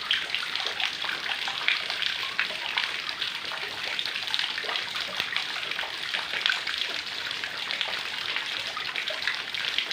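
Heavy rain falling steadily: a dense hiss of water full of small drop splashes.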